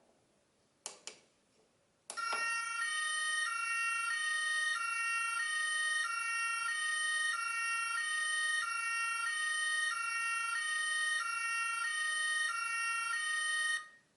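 Two quick clicks, then the Playmobil 9360 SEK truck's battery-powered sound module plays an electronic two-tone siren, alternating between two pitches about every 0.7 s. It cuts off suddenly near the end.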